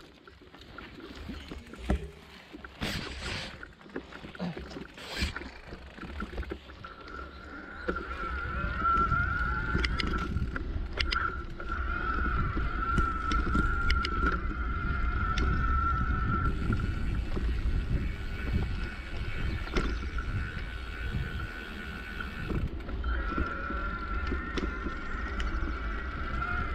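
Mountain bike rolling over a leaf-strewn dirt trail: a steady rumble of tyres on the ground, with a few clicks and knocks in the first few seconds. From about eight seconds in, as the bike picks up speed, the rumble grows louder and a steady high hum joins it.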